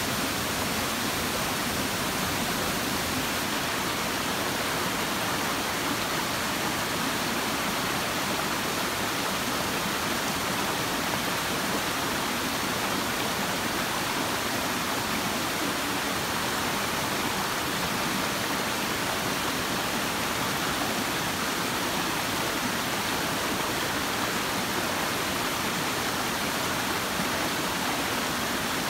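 Shallow stream water rushing steadily over a rock slab, a constant even rush that does not change.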